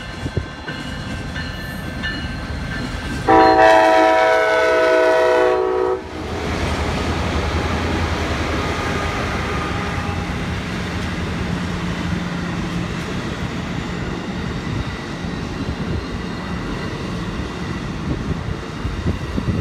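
Amtrak passenger train led by a Siemens Charger diesel locomotive: one long horn blast about three seconds in. Then the locomotive's engine and the wheels of the coaches rumble past close by.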